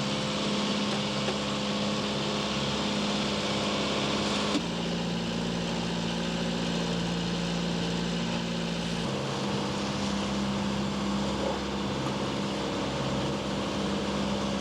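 A sailboat's engine running steadily as the boat motors along, a constant hum whose pitch and tone jump abruptly twice, about four and a half and nine seconds in.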